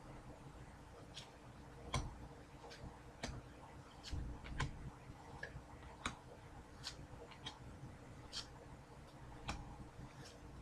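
Trading cards being handled and flipped through by hand: faint, irregular sharp clicks and snaps, one or two a second, over a low room hum.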